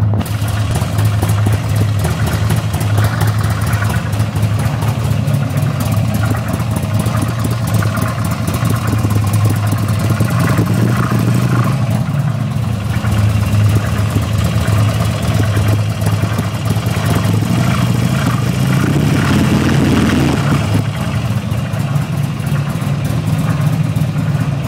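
Buell motorcycle engine running steadily at idle, with an odd noise that the owner believes comes from the primary drive.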